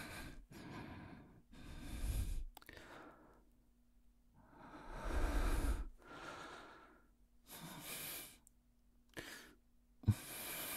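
A man breathing slowly and sighing close to the microphone, about eight breaths in and out. The longest, loudest breath comes about five seconds in, and there is a small click near the end.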